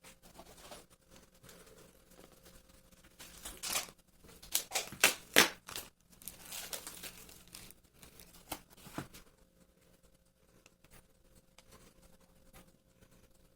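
Kitchen handling sounds: crinkling and tearing, like plastic packaging, with a few sharp clicks, busiest and loudest from about three and a half to seven seconds in.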